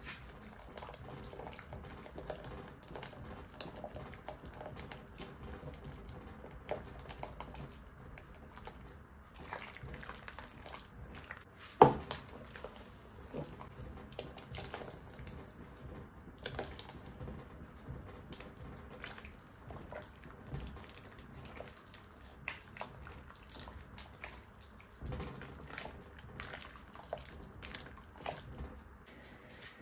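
Flour-and-water slurry poured from a glass bowl into a pan of simmering curry and stirred in with a wooden spoon: liquid pouring and splashing, with small clicks and scrapes. One sharp knock about twelve seconds in stands out above the rest.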